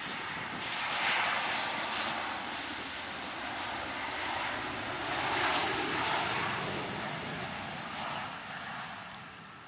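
Boeing 737-800's CFM56 jet engines just after touchdown: a loud rushing roar that swells twice, about a second in and again after five seconds, then fades near the end as the airliner rolls out and slows on the runway.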